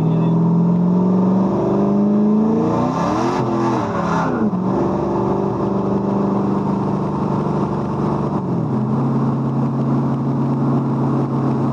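Car engine running under load as the car is driven, its pitch climbing for the first couple of seconds, rising and falling briefly about three seconds in, then holding steady before dropping a step near the end.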